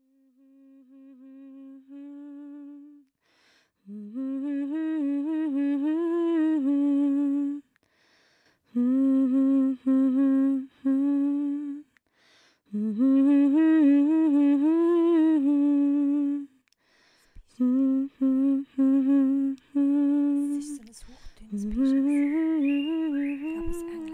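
A single voice humming a slow, wordless melody in short phrases with brief breaks between them. Some phrases are runs of repeated short notes.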